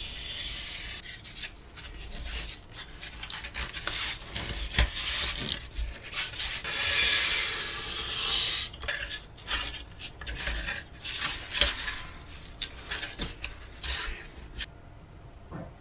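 Hands working a Depron foam wing: foam rubbing and scraping under the hands, then a utility knife drawn along a steel ruler to cut a slot in the foam, the longest and loudest cut about six to eight and a half seconds in. It ends with scattered taps and scrapes as a carbon flat strip is pressed into the slot.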